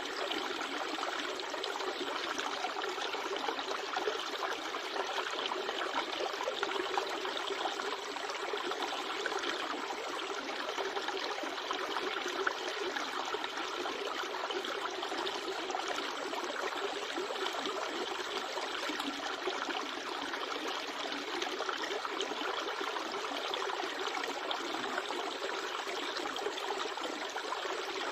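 River water running steadily, an even wash of flowing water with no breaks.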